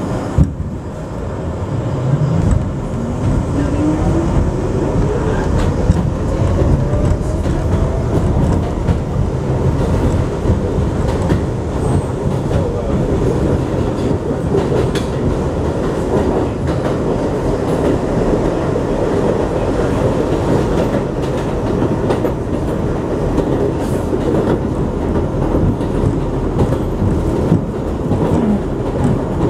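A 7 train subway car pulling away and picking up speed on the elevated line. Its motor whine climbs steadily in pitch for about six seconds, starting about two seconds in, over a loud rumble and the clatter of wheels on the rails, with one sharp knock near the start.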